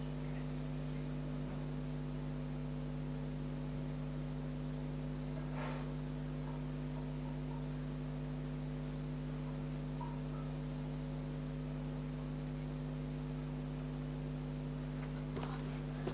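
Steady electrical mains hum, a constant buzzy drone, with one faint short rustle about five and a half seconds in.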